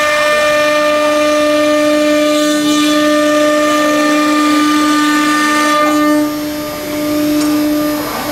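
Two spindles of a twin-head CNC router running together with a steady high-pitched whine while routing a wooden board. The loudness dips briefly about six seconds in.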